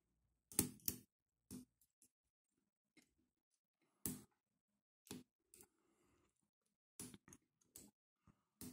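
Irregular metallic clicks of a short hook pick working the pin stack of a Ruma 50 padlock, about a dozen scattered ticks and taps with gaps of silence between them.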